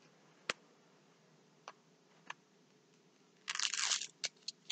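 Handling of a diamond-painting canvas: one sharp click about half a second in and a couple of faint ticks, then a short rustle of paper near the end as the protective sheet over the canvas is lifted.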